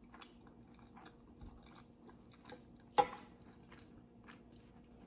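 Close-miked chewing of a mouthful of white rice, beans and stewed beef, with small wet mouth clicks. About three seconds in, a single sharp clack as a metal spoon is set down on the wooden board.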